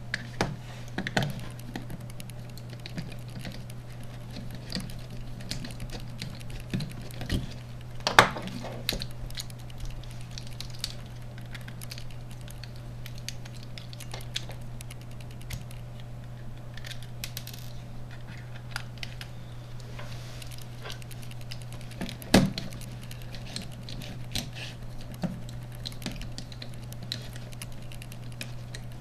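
Small plastic clicks and scrapes of a BlackBerry Curve 8520 smartphone being taken apart by hand with a small screwdriver, with two louder knocks, one about eight seconds in and one about twenty-two seconds in, over a steady low hum.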